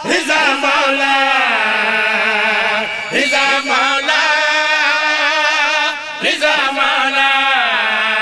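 Men chanting a Punjabi qasida in long, wavering held notes. The phrases break about three and six seconds in.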